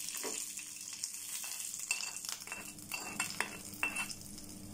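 Hot oil tempering sizzling faintly as it is tipped onto boiled chickpeas in a steel bowl, with a steel spoon scraping it out of the pan and clinking sharply against the metal several times in the second half.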